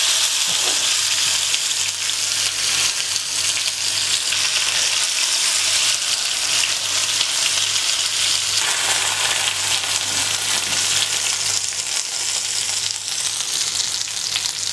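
Masala-coated karimeen (pearl spot) fish shallow-frying in coconut oil in a nonstick pan, sizzling steadily.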